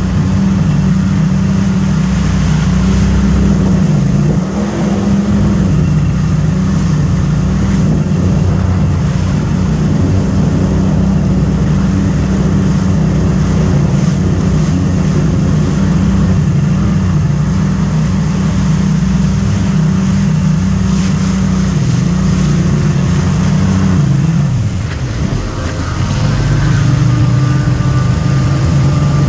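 Watercraft engine running steadily at speed over water, a constant low drone with water noise above it; it eases off briefly near the end, then picks up again.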